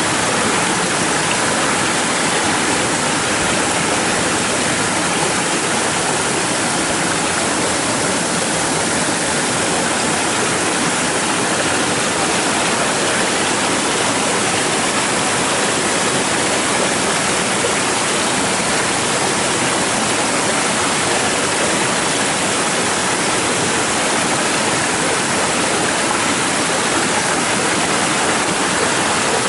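Muddy rainwater runoff flowing and splashing over rocks in a small stony watercourse, a steady, loud rush of water with no breaks.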